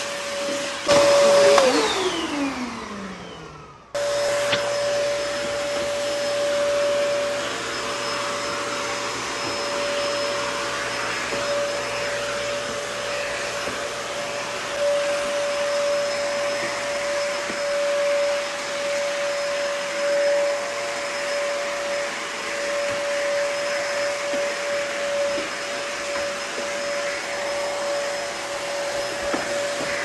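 A vacuum cleaner's motor winds down near the start, its whine falling in pitch until it almost stops. From about four seconds in, a canister vacuum cleaner runs steadily with a constant whine as its floor nozzle is pushed over a wooden floor.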